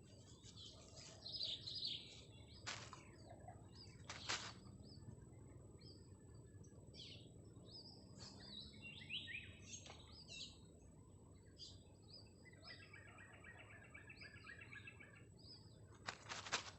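Birds chirping with short scattered calls, and a fast trill of rapid notes starting about twelve seconds in. A few sharp knocks can be heard.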